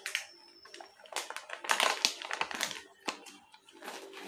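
Plastic baby-wipes packet crinkling and rustling in irregular bursts as it is waved and pushed about, loudest about two seconds in.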